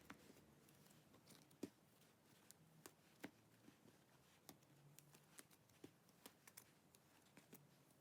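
Near silence with faint, irregular small clicks and crackles from slime being handled.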